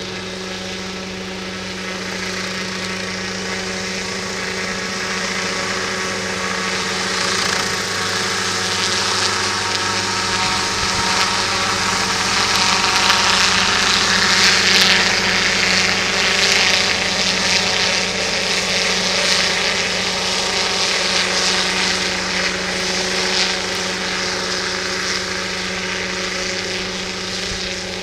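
Radio-controlled crop-spraying helicopter's engine and rotor running with a steady drone. It grows louder toward the middle, then eases off a little.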